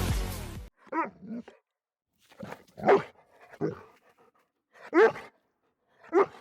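A dog barking: about six short, separate barks spaced roughly a second apart. A music track fades out in the first moment.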